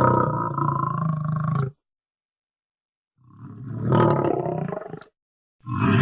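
Dragon roar sound effects. One roar cuts off a bit under two seconds in, then after about a second and a half of silence a second roar swells and fades, and a third, louder roar begins near the end.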